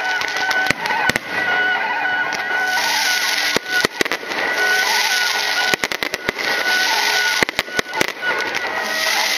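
Aerial fireworks going off: irregular sharp bangs in quick clusters over a dense crackling hiss that thickens a few seconds in, with thin steady tones held underneath.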